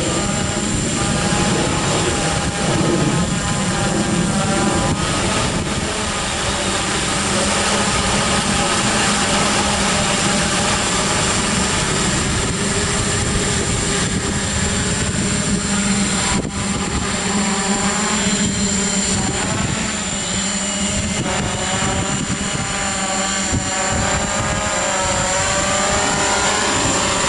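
FLYPRO X600 hexacopter in flight, its six electric motors and propellers making a steady buzzing whir. The pitch wavers up and down as the motors change speed, and rises near the end.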